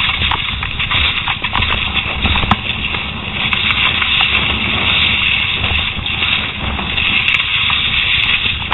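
Wind buffeting the microphone of a helmet camera in strong gusts, with the rattle and tyre noise of a downhill mountain bike riding fast over rough, rutted dirt. It is a constant rushing noise with a deep rumble, broken by short knocks from the bike.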